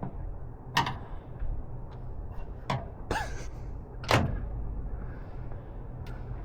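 Old Hotpoint washing machine running with a steady low hum, while things loose in its drum knock sharply three times, a second or two apart.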